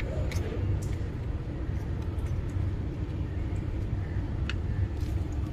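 Steady low background rumble with a few faint, scattered clicks and taps as the drill's motor and brush parts are handled and seated in its plastic housing.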